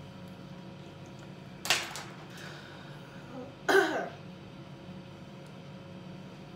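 Two short throat-clearing coughs about two seconds apart, the second louder and with some voice in it, over a steady low hum.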